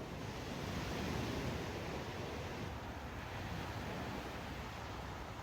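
A steady, even rushing noise with no distinct events, slightly louder in the first second.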